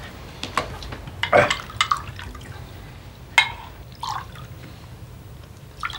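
A drink being poured from a bottle into glasses at a table, with a few short clinks and knocks of glassware and cutlery.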